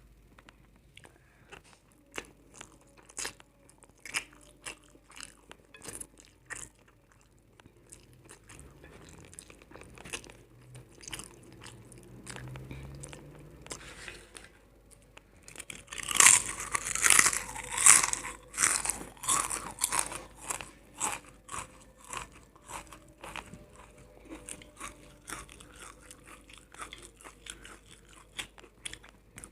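Close-miked eating: chewing with repeated sharp crunches of crisp food, and a run of loud crunchy bites about halfway through.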